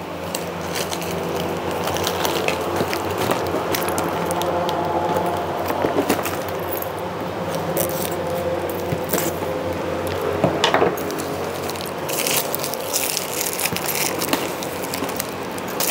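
Scissors snipping plastic strapping and string, with cardboard box handling and scattered clicks and rustling, over a steady background hum of several held tones.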